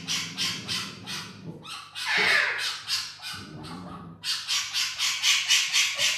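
Parrot squawking: a rapid series of short, harsh calls, with a louder screech about two seconds in.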